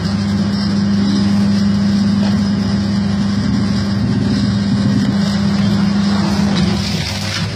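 Coconut dehusking machine running with a steady, constant-pitch hum.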